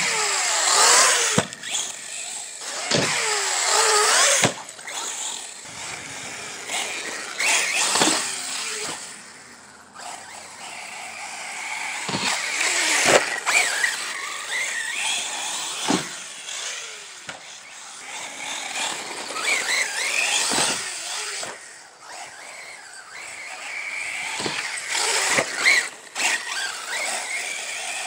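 Brushless electric motor and drivetrain of an Arrma Typhon 6S RC truggy, geared on a 12-tooth pinion, whining up and down in pitch as it is throttled on and off. Tyres scrabble on dirt, with sharp knocks from landings and bounces, one right at the start.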